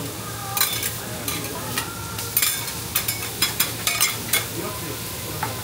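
Okonomiyaki and yakisoba noodles sizzling steadily on a hot steel teppan griddle, with a run of sharp metal scrapes and clacks from a flat metal spatula working against the plate.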